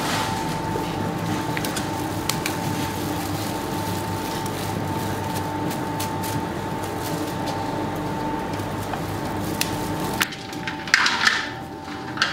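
Steady machine hum with a constant high tone and scattered sharp clicks, typical of bakery equipment running. About ten seconds in it cuts off abruptly to quieter surroundings, with a few knocks and scraping sounds.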